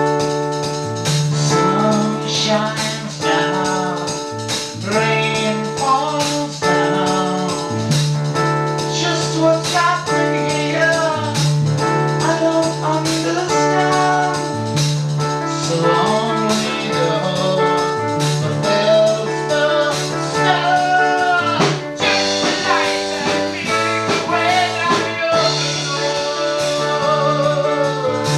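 A band playing a song: held keyboard chords over a stepping bass line, with drums and tambourine keeping the beat and a voice singing over it.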